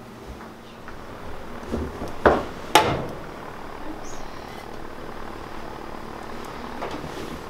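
Two sharp knocks about half a second apart, then a steady sizzle as bacon strips are laid into a hot cast-iron skillet.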